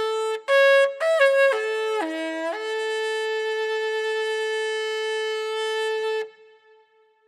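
A solo wind instrument plays a short melodic phrase of a few quick notes, then holds one long final note that stops a little after six seconds and fades out.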